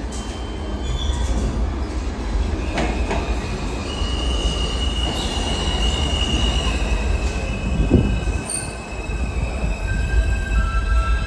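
Alstom R160B subway train pulling into the station: a low rumble from the cars, with a high, steady squeal from the train coming in about four seconds in and shifting pitch as it slows alongside the platform.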